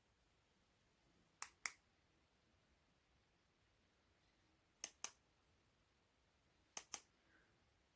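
Sharp clicks in pairs, three double clicks a few seconds apart, over near silence.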